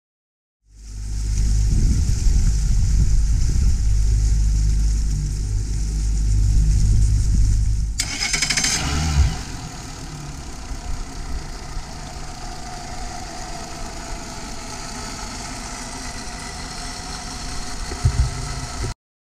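Mercury 275 hp four-stroke outboard engines idling with a steady low rumble. About eight seconds in the sound changes abruptly to a quieter, lighter running note, with a short knock near the end.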